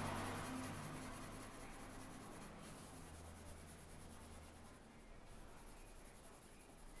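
Pencil scratching on paper in shading strokes, loudest at the start and growing fainter.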